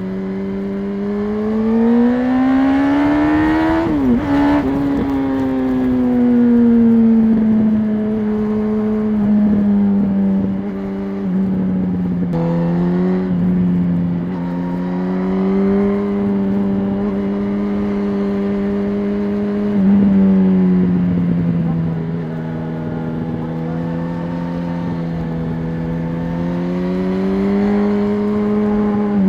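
2006 Yamaha R1's inline-four engine with its stock exhaust, running under way on the road. The revs climb over the first few seconds, dip sharply about four seconds in, then hold fairly steady with gentle rises and falls.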